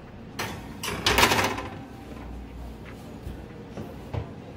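Metal sheet pan slid onto a wire oven rack: a scraping rattle of pan on rack about a second in, then a short dull knock near the end as it is pushed home.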